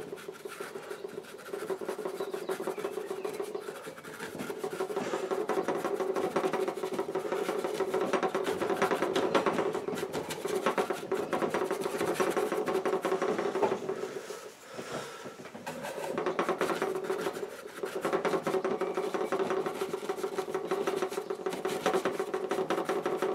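Stiff bristle brush scrubbing oil paint back and forth on a painting board while blending, a continuous rasping rub. It breaks off briefly a few times as the brush is lifted.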